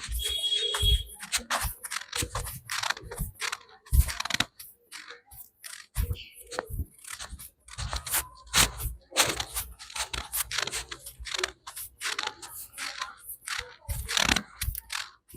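Barber's hands giving a head massage: a quick, irregular run of taps, slaps and rubbing on the scalp and skin, with a short lull about five seconds in.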